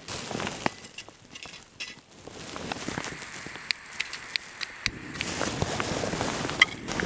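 Light clinks and ticks of camping utensils and food packaging being handled, with rustling that sets in about two seconds in and grows louder about five seconds in.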